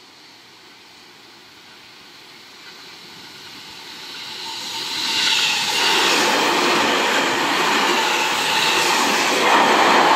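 Seibu 10000 series Red Arrow electric express train approaching and then passing close by at speed: the sound builds for the first few seconds, then turns into the loud rush of the cars going by, with a beat about once a second as each set of wheels passes.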